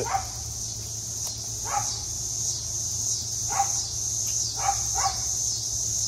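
A dog barking, about five short barks spaced irregularly, over a steady high drone of insects.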